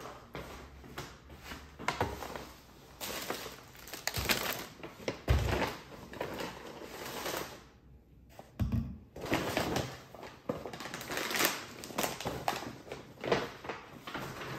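Paper grocery bags rustling and crinkling while groceries are unpacked, with several dull thuds as things are set down on a stone countertop.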